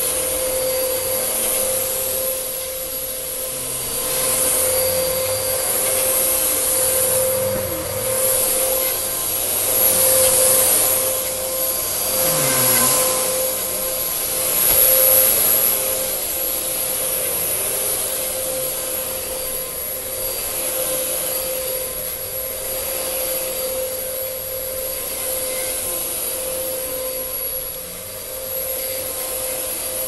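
Bagless upright vacuum cleaner running on carpet, its motor giving a steady whine while the rush of suction swells and fades with each push and pull of the head.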